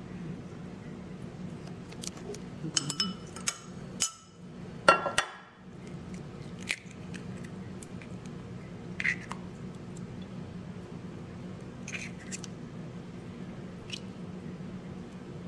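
Eggshells tapped and cracked against the rim of a ceramic bowl: a cluster of sharp taps and clinks a few seconds in, the loudest about five seconds in, then a few scattered lighter clicks of shell. A low steady hum lies underneath.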